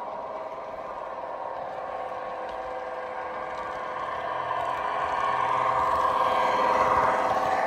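Piko model class 612 Regio-Swinger railcar running on the track, its ESU V4.0 sound decoder playing diesel engine sound through the model's small speaker, mixed with the clatter of its wheels and motor. It gets louder from about four seconds in as the railcar approaches and passes.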